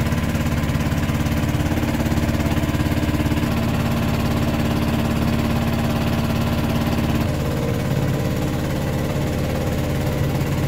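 Engine of a wooden motorboat running steadily with a fast, even pulse; its note changes about seven seconds in.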